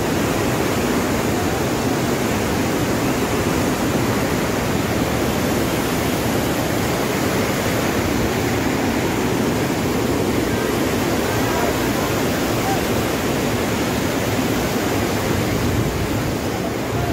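A fast mountain river rushing over boulders: a loud, steady roar of white water.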